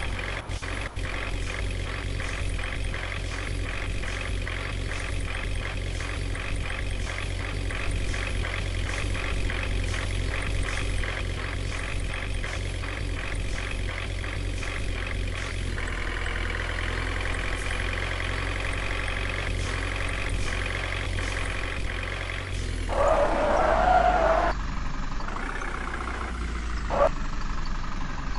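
Heavy diesel engine running steadily, its note shifting about halfway through, with a loud burst of sound a few seconds before the end and a brief one just after it.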